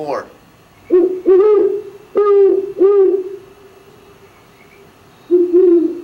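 Recorded owl hooting: a run of four low hoots, then after a pause two more near the end.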